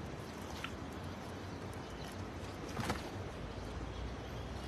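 Live tilapia flopping and a nylon cast net being handled on wet ground, with faint clicks and one louder slap about three seconds in, over a steady low background rumble.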